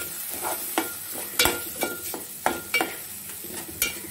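Metal spatula scraping and knocking against a metal pot while stirring a ground onion-coconut masala paste frying in oil, about two strokes a second, some with a brief ring of the pot, over a soft sizzle.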